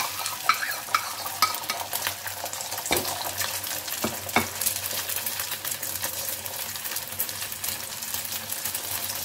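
Beaten egg frying in hot oil in a black pan, sizzling and crackling steadily. A few sharper clicks stand out around three and four seconds in.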